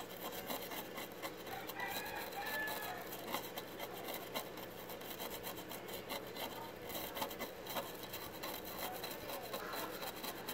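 Continuous scraping and rubbing made of many small scratchy strokes, from hands-on work at the TV's circuit board.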